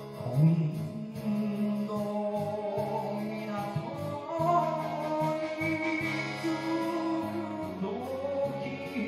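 Enka karaoke: a voice sings a slow, drawn-out melody line with a wavering pitch over the song's backing track.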